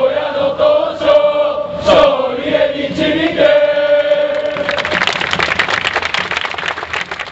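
A stadium crowd of football supporters singing a player's chant in unison, the name held on long drawn-out notes. About two-thirds of the way through the singing ends and the crowd breaks into clapping and cheering, fading out near the end.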